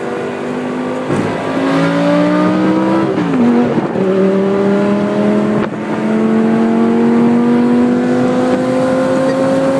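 Lamborghini Gallardo's V10 engine accelerating: its note climbs, falls sharply with an upshift about three seconds in, then climbs steadily again.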